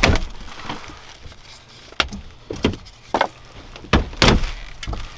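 Plastic minivan door trim panels being handled, giving a string of sharp knocks and clatters, loudest at the start and about four seconds in.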